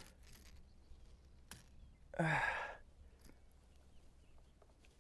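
A man's short voiced sigh about two seconds in, gliding slightly down in pitch. Otherwise quiet, with a faint click just before it.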